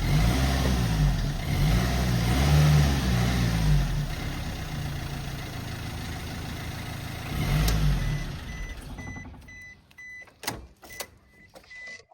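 Car engine revved in repeated blips, the pitch rising and falling, then settling to a steady idle. After one more short blip the engine is switched off. As it dies, a high warning chime starts beeping about three times a second, and two sharp clicks follow.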